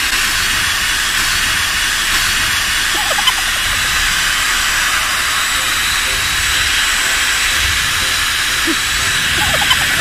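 Dyson Supersonic hair dryer running: a steady, loud rush of blown air with a faint high whine.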